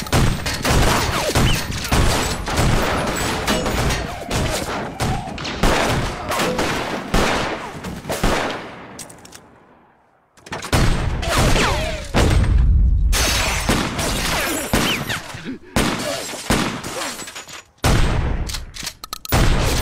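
A fusillade of handgun fire from several police officers, shots overlapping in a rapid, dense volley. About eight seconds in the firing fades away to near silence, then breaks out again abruptly a couple of seconds later and keeps going.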